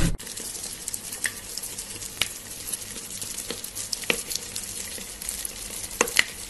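Cotton candy dissolving as it is lowered into a bowl of water: a soft, steady crackling fizz with scattered sharp clicks.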